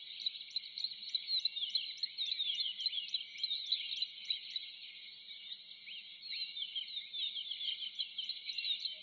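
Dense chorus of small birds chirping, full of quick down-slurred calls, over a high, regular ticking call about four times a second that drops out about halfway through and returns near the end.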